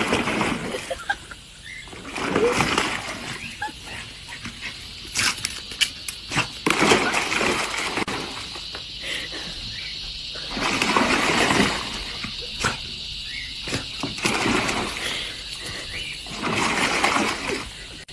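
Water and foam splashing in a plastic kiddie pool as a dog moves about in it. The splashes come in bursts of a second or so, with quieter gaps between.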